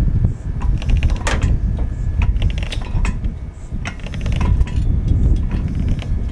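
Aircraft tripod jack being pumped by hand under the nose gear, its handle and mechanism clicking and clanking in clusters about every second and a half with each stroke, over a steady low rumble.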